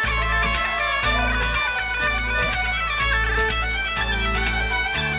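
Bagpipes playing a fast-moving Scottish folk tune over steady drones.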